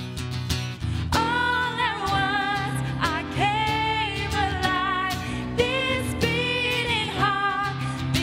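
Church worship band playing a contemporary Christian song, with a sung melody line coming in about a second in over the steady band backing.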